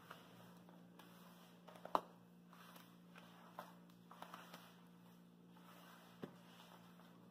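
Faint sounds of hands kneading crumbly tapioca-starch dough in a plastic bowl, with a few soft clicks and taps scattered through, the sharpest about two seconds in.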